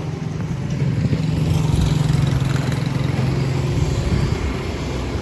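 A motor vehicle's engine: a steady low hum that grows to its loudest about two seconds in and eases off toward the end.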